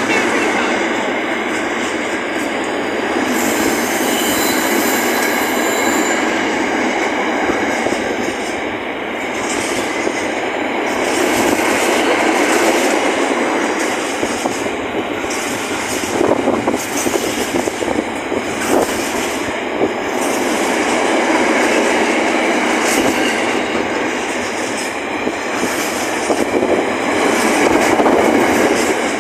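Flat wagons of a freight train rolling slowly past, wheels clattering over the rail joints, with a brief high wheel squeal about four seconds in.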